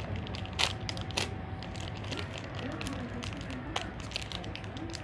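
Plastic wrapper of a Beng-Beng chocolate wafer bar being torn open and crinkled by hand: irregular crackling and rustling, with a few sharper snaps.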